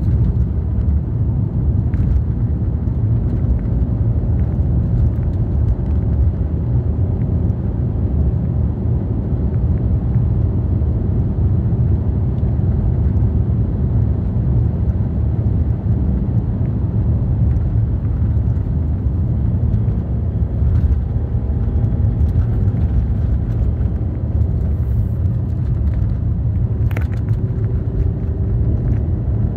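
Steady in-cabin drive noise of a 2003 BMW 318i E46 with a four-cylinder petrol engine: a low rumble of engine and tyres on a sealed road. A couple of brief clicks come about two seconds in and again near the end.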